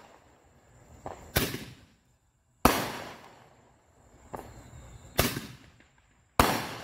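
Fireworks going off in a series of sharp bangs, four loud ones and a couple of softer pops about every one to one and a half seconds, each dying away over about a second.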